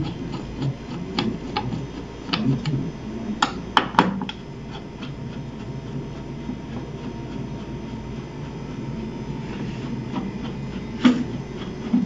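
Hand screwdriver turning screws out of a TV's sheet-metal bracket: a run of sharp metallic clicks and scrapes in the first four seconds, with another click near the end, over a steady low hum.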